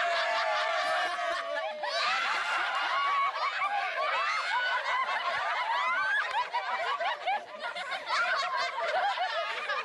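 A crowd of children laughing and shouting together, many high voices overlapping, with one long held cry sliding downward in the first two seconds.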